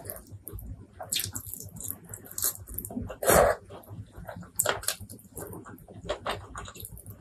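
Close-miked wet chewing and lip smacks from eating spicy fried chicken wings in curry with rice, with a louder smack or bite about three seconds in.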